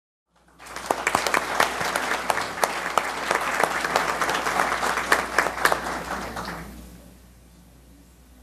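Audience applauding, starting suddenly about half a second in and dying away around seven seconds in.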